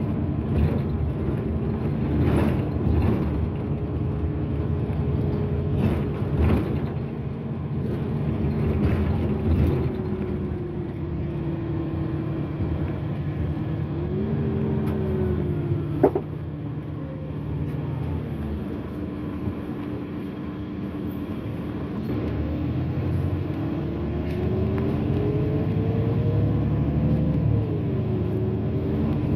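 Irisbus Citelis city bus heard from inside while driving: engine and drivetrain running over road rumble, with a whine that climbs and drops back several times as the bus speeds up and slows. A single sharp click about halfway through.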